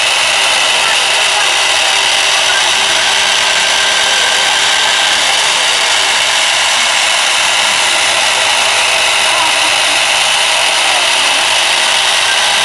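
CNC router spindle running at speed while its end mill carves a spiral twist into a wooden baluster turning on the rotary axis. It makes a steady high whine over the noise of wood being cut.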